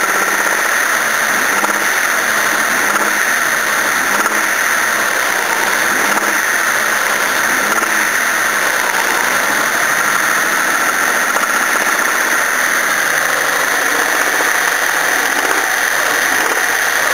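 Toyota Cressida's 5M straight-six engine running unloaded with a knocking noise, which the owner suspects is worn big-end bearings, hoping it is not worn piston skirts.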